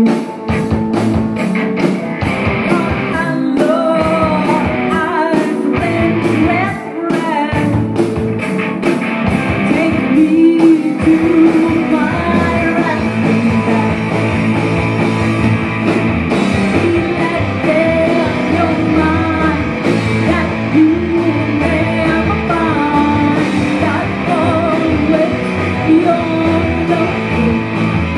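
Live rock band playing: a woman sings over electric guitar, bass guitar, drums and keyboard. The band plays in choppy, stop-start hits for roughly the first ten seconds, then settles into a fuller, steady groove.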